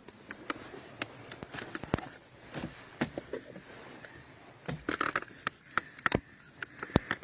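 Irregular clicks, knocks and scraping as a transmission control module in a metal box is handled and fitted up under a car's dashboard.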